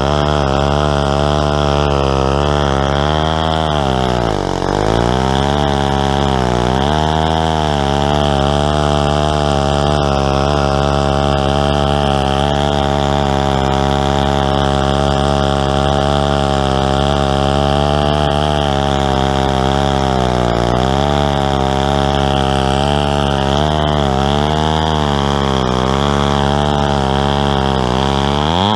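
Stihl 090 two-stroke chainsaw running at high revs under load in a chainsaw mill, ripping lengthwise through a tulip poplar log. The engine pitch sags and recovers as it bogs in the cut: about 4 s in, again about 20 s in, and several times near the end.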